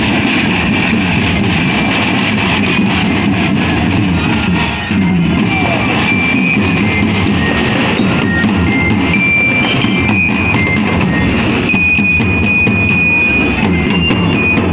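A marching drum band playing: snare and bass drums beating a steady march rhythm, with a bell lyra (marching glockenspiel) ringing out a melody over the drums.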